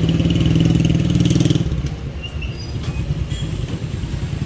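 Engine of a motor vehicle running close by, loudest for about the first second and a half, then dropping away to a low rumble of street traffic.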